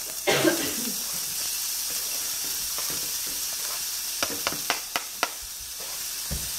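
Chopped shallots sizzling in hot oil in a frying pan, a steady hiss. About four seconds in come a handful of sharp taps as the last pieces are knocked off a plastic cutting board into the pan.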